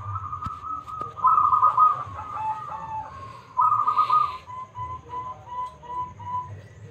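Zebra dove (perkutut) cooing: two louder rolled phrases, then a run of short, evenly spaced coos, about three a second, falling a little in pitch near the end.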